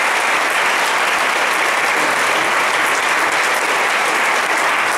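Audience applause, steady and loud, welcoming a speaker to the podium.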